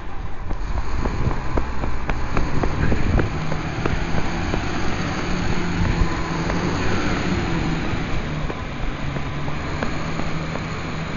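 Garbage truck's diesel engine running with a steady low hum, overlaid by irregular knocks and rustles from the camera being carried along, which are thickest in the first several seconds.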